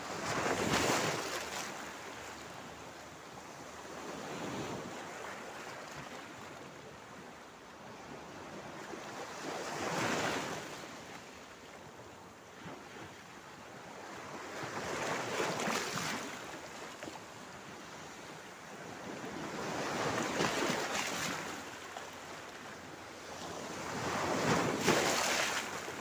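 Small Mediterranean Sea waves washing in over a rocky shore, each surge of foam swelling and then draining away, about every five seconds; the surges near the start and the end are the loudest.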